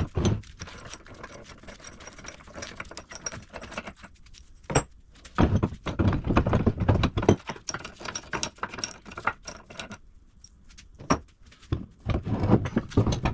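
Metal clicking, clinking and knocking of hand tools and loose parts as a cast-iron bench vise is taken apart, in irregular clusters with louder bursts about five seconds in and near the end.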